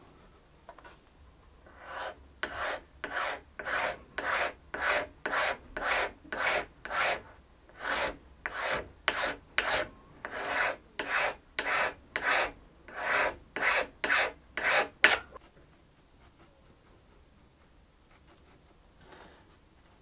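Hand file scraping across a small maple cello soundpost patch in even strokes, about two a second. It goes on for some thirteen seconds and stops about fifteen seconds in. The wood is being taken down where red chalk marks show high spots, to fit the patch to the cello's back.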